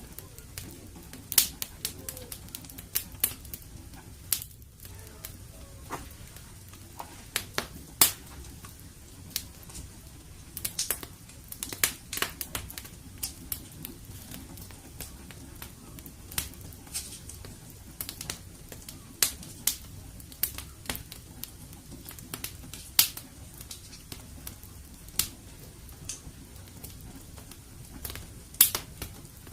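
Wood fire in a fireplace crackling: irregular sharp pops and snaps, a few much louder than the rest, over a low steady rumble of the burning fire.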